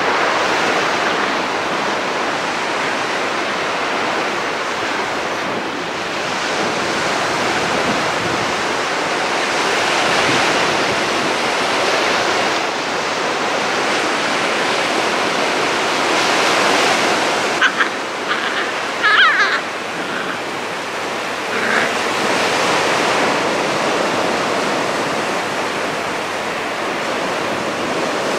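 Sea surf washing on a beach, a steady noise that swells and eases every few seconds. A few brief high-pitched sounds come about two-thirds of the way through.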